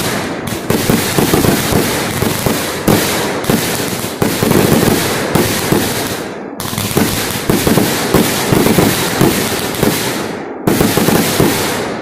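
Backyard fireworks finale: a rapid, continuous barrage of aerial firework bursts, many overlapping bangs with heavier booms every second or so, dying away at the end.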